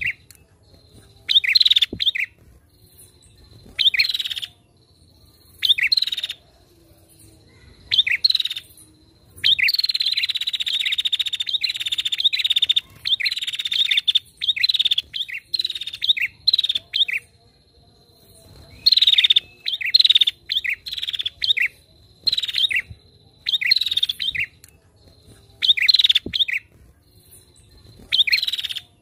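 Female prinia (prenjak) calling: short sharp chattering phrases repeated about every second or two, with a long rapid trill about a third of the way in.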